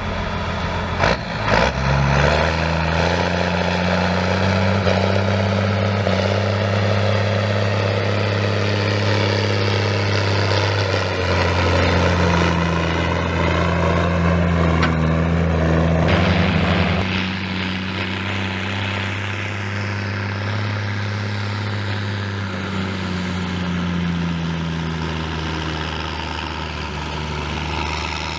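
Farm tractor's diesel engine working under load pulling a loaded trailer: a steady, deep drone that rises in pitch about two seconds in. It is a little louder through the first half and drops back somewhat after the middle.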